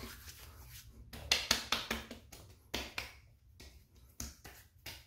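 Hands rubbing and patting aftershave onto the face and neck: a string of short, irregular skin-on-skin pats and rubs.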